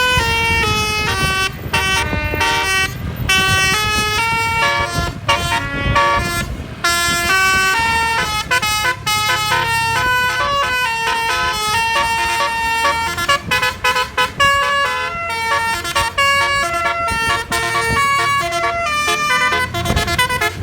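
Basuri telolet multi-tone air horn on a tour bus, playing a quick melody of very loud stepped horn notes, each note held a fraction of a second, over the low rumble of the bus engine.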